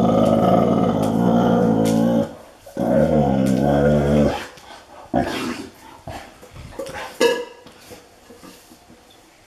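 Newfoundland dog giving two long, low growls, the first lasting about two seconds and the second, a moment later, wavering in pitch. Then a few quieter short knocks and clicks.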